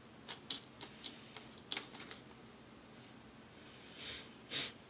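Small plastic building-block figure parts clicking and tapping as they are handled and pressed together: a quick run of sharp clicks in the first two seconds, then a soft rub and one more click near the end.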